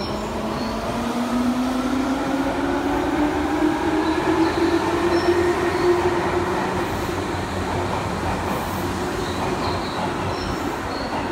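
Tobu 20000 series subway train pulling out of an underground station. Its motors whine in a pitch that rises through the first six seconds as it speeds up, over the steady rumble of wheels on rail.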